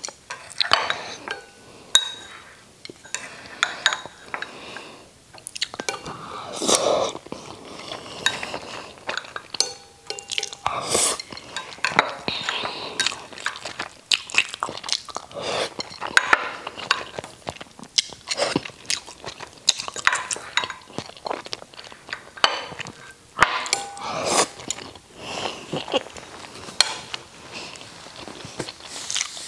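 Chewing and mouth sounds of someone eating soft braised catfish with rice: a steady run of short smacks and clicks, with chopsticks now and then tapping a ceramic rice bowl.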